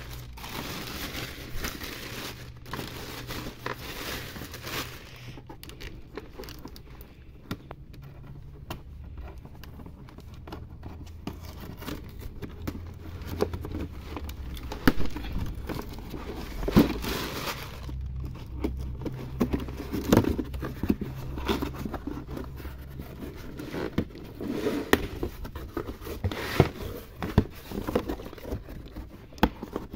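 Cardboard box being handled and torn open: tape tearing, flaps crinkling and scraping, with scattered sharp knocks, busier in the second half.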